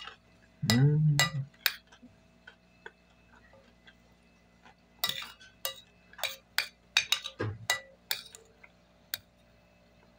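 Metal spoon and fork clinking and scraping against a porcelain plate while eating: a run of sharp clinks, each with a short ring, most frequent in the second half. A brief low hummed voice sound about a second in is the loudest thing.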